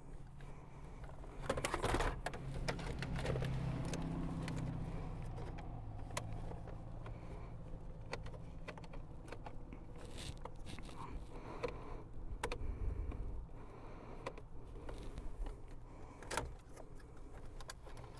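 A screwdriver and hands working on the plastic dash trim and radio bracket of a 2001 Toyota Camry: scattered clicks, rattles and scrapes, loudest in a clatter about two seconds in.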